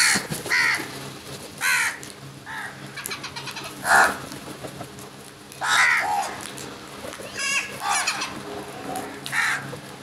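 A flock of house crows cawing: about ten harsh caws at irregular intervals, some close together.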